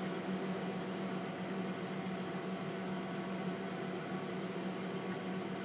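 TRS-80 Model 16B computer running: a steady low hum with an even hiss over it.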